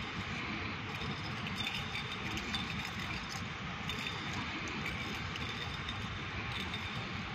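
Steady rumbling background noise of a large empty sports hall, with a few faint knocks now and then.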